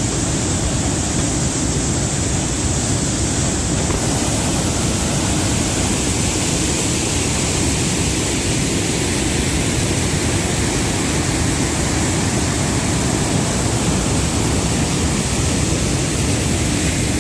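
A waterfall rushing: loud, even, unbroken noise that holds steady throughout.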